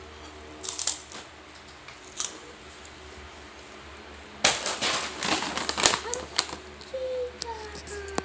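Crisp crackling and clicking of crunchy snack chips being handled and eaten. A few single crackles come first, then a dense burst of crunching about halfway through.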